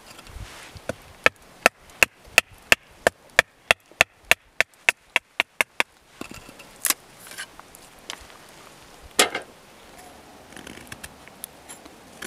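Fixed-blade knife chopping into a stick of wood held against a log: a run of about fourteen sharp, evenly spaced knocks that speed up. Then a few scattered cuts follow, with one louder knock about nine seconds in.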